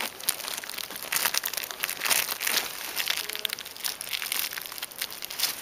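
The plastic bag around a bee fondant cake crinkles and crackles irregularly as gloved hands press the cake down onto the top bars of a beehive's frames.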